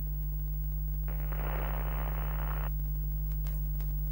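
Steady low electrical hum, with a patch of hiss that starts about a second in and stops abruptly under two seconds later.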